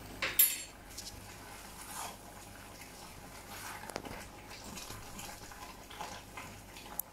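Wooden spoon stirring thick, creamy pasta and potatoes in a copper pot, giving soft scraping and sloppy stirring sounds every second or two. A sharp clatter comes about half a second in, over a steady low kitchen hum.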